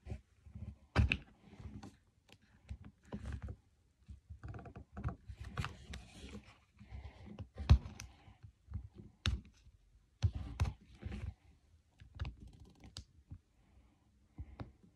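Fingers picking and peeling at the tape seam of a plastic surprise-toy ball: irregular plastic clicks, scratches and crinkles, a few of them sharper and louder.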